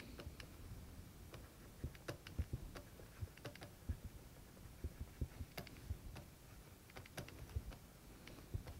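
Faint, irregular taps and clicks of a pen stylus on a writing tablet while words are handwritten, over a low room hum.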